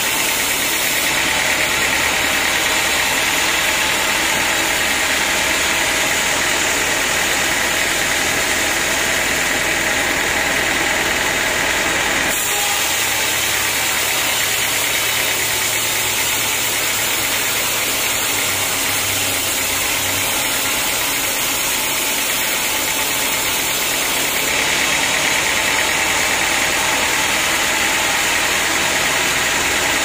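Band sawmill running, its blade cutting lengthwise through a teak log with a steady, loud mechanical noise. The sound of the cut changes about twelve seconds in and again about five seconds before the end.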